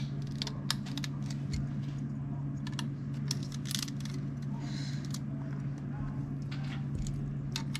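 Plastic Lego bricks clicking and clattering as pieces are handled and sorted, in irregular sharp clicks over a steady low hum.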